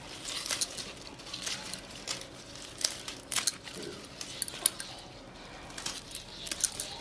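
Fresh spinach leaves being snapped off their stems by hand: small, irregular crisp snaps and leafy rustling.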